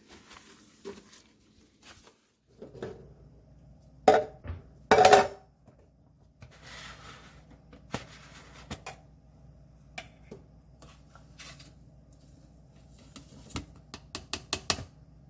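Food storage containers and lids being handled and set down: scattered knocks and clinks, the loudest two about four and five seconds in, and a quick run of clicks near the end, over a faint low steady hum.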